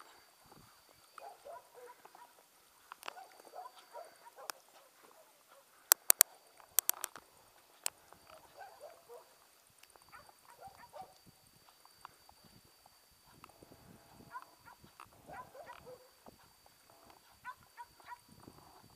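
German wirehaired pointer swimming, breathing in short huffs and snorts as it paddles through the water. There are a few loud sharp clicks about six to eight seconds in.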